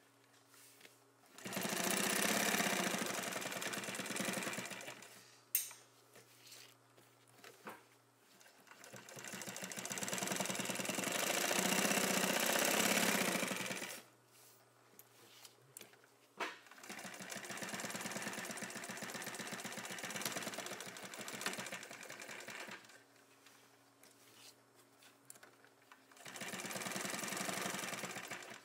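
Juki LU-1508NH single-needle walking-foot lockstitch industrial sewing machine stitching through heavy material. It runs in four spurts of a few seconds each, with stops between them, and gives a sharp click in two of the pauses.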